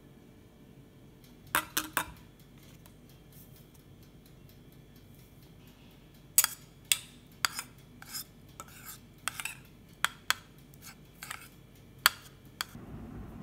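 Metal spoon clinking against a ceramic bowl while mixing soft half-boiled eggs. There are three clinks about a second and a half in, then a run of sharp, irregular clinks from about six seconds on.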